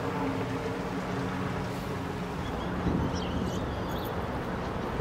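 A boat's engine running steadily with a constant hum, under a rushing wash of water and wind noise.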